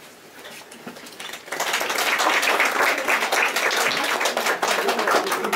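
Small audience applauding with many hands clapping, starting about a second and a half in.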